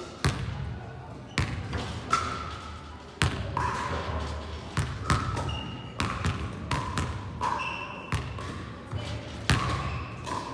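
Basketball bouncing on a hard sports-hall court, a dozen or so sharp, irregularly spaced bounces, each with a hall echo. Several bounces are followed by short high squeaks.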